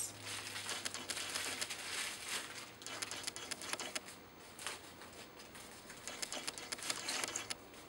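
Clear plastic bubble-wrap bag crinkling and rustling irregularly as a camera lens is unwrapped from it by hand.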